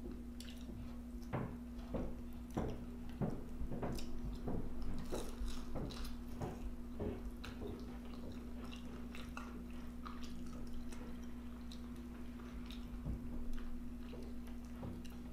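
Close-up chewing and wet mouth smacking while eating a vegetable egg roll, a quick run of smacks for the first half or so, then sparser. A steady low hum runs underneath.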